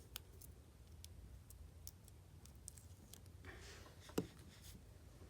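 Faint, scattered clicks and taps from fingernails and nail strips being handled, with a brief rustle a little past three seconds and one sharper click about four seconds in. Low room hum underneath.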